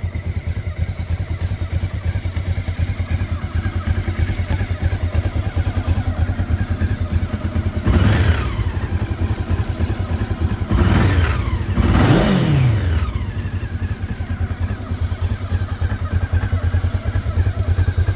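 Honda CB500 Sport's parallel-twin engine idling steadily and blipped on the throttle three times: once about eight seconds in, then twice in quick succession around eleven and twelve seconds, each rev falling straight back to idle.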